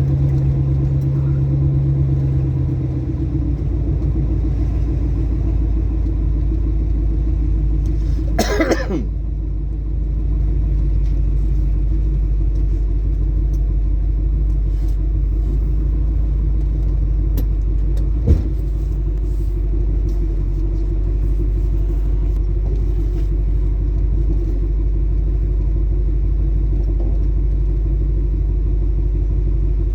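Ford Mustang Mach 1 driving on the road, a steady low engine and road rumble; the engine note falls away about three seconds in. A brief whoosh passes about eight seconds in, and there is a single sharp knock a little past halfway.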